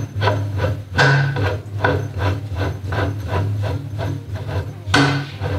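VW T1 steering box and column turned back and forth by hand in a vice: a dry, rubbing rasp with short clicks about four to five a second. The box's adjuster screw has just been set to take out the play around straight ahead.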